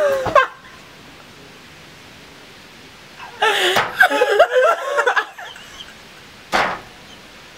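Two people laughing and exclaiming for about two seconds midway, then a single short, sharp smack a second later.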